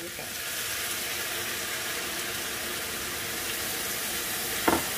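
A cup of beef broth poured into a hot cast iron skillet of steak, corn and onion, hissing and sizzling steadily as it hits the pan. A single sharp knock near the end.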